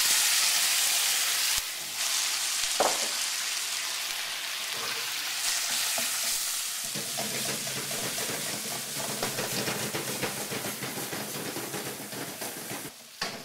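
Marinated pork strips searing in a very hot oiled wok: a loud frying sizzle, loudest right after the meat goes in, then a steady hiss full of small spitting crackles.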